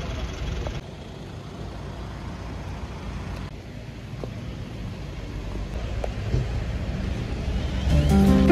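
Street ambience with a steady low rumble of road traffic. Acoustic guitar music comes in near the end.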